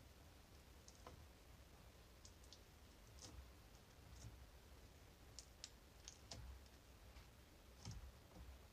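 Near silence: faint background tone with scattered, irregular faint high-pitched clicks.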